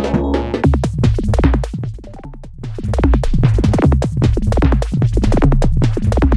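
Electronic ringtone tune: a drum-machine beat with quick, short synth notes, dipping quieter for a moment about two seconds in.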